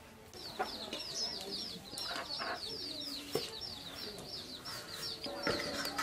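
Chickens calling: a rapid, steady run of high chirps several a second, with lower clucks and a few sharp knocks.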